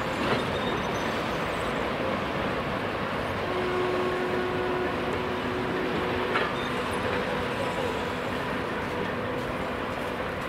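2TE116 two-section diesel locomotive running past with a steady engine drone and rolling rail noise. A few faint steady tones come and go, and there is a short sharp click about six seconds in.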